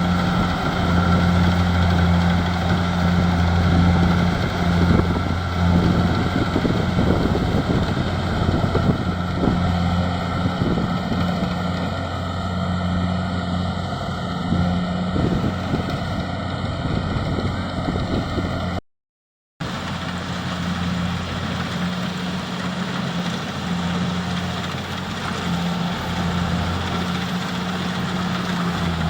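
Rice combine harvester's engine running steadily under load, a constant low hum with mechanical clatter over it. The sound cuts out completely for under a second about two-thirds of the way through, then resumes slightly quieter.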